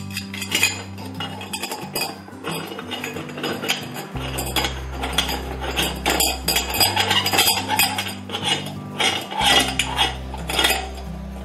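Metal parts of a manual meat grinder clinking and scraping against each other as they are handled and fitted together: a sausage stuffer tube and the threaded retaining ring going onto the grinder's barrel. There is a steady run of small irregular clinks throughout.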